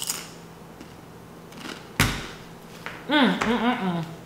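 A woman's appreciative 'mmm' while savouring a mouthful of food, several rising-and-falling hums near the end. A single sharp knock comes about two seconds in.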